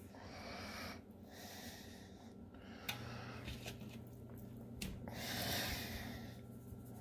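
A person breathing close to the microphone: a few soft, noisy breaths about a second long each, with a couple of light clicks of handling in between.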